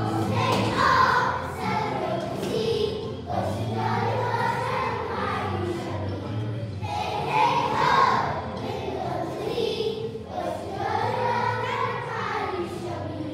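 A group of young children singing a song together in unison over recorded backing music, in phrases of a few seconds each.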